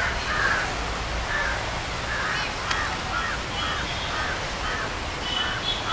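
Crows cawing over and over, about two calls a second, against a steady outdoor background.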